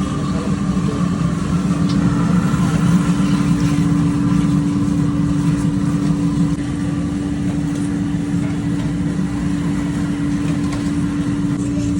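A steady machine hum: one constant drone over a dense low rumble, dropping slightly in level about halfway through.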